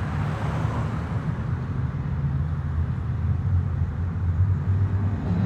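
Car driving on a highway, heard from inside the cabin: the steady low rumble of the engine and the tyres on the road.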